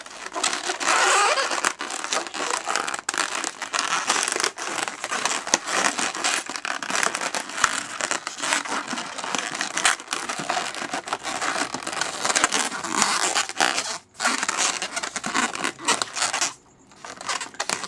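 Inflated latex twisting balloons rubbing and squeaking against each other and the fingers as they are handled and pulled tight, a dense run of crinkles and squeaks with short breaks near the end.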